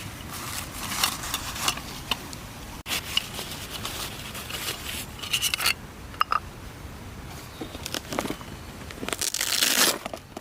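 Small objects being handled: rustling, scraping and crinkling with light clicks and taps, and a longer, louder rustle near the end.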